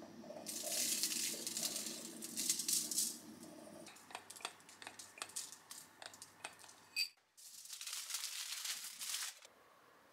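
Brown sugar and then cinnamon from a metal shaker sprinkled over buttered bread on aluminium foil: two spells of dry, grainy rustling with foil crinkling, and light taps and clicks between them.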